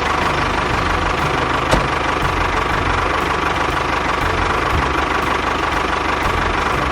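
An engine running steadily at idle, with a steady whine on top and a single click a little under two seconds in.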